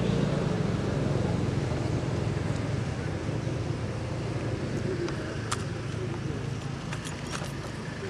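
Steady low hum of a motor vehicle engine running, with a few faint clicks.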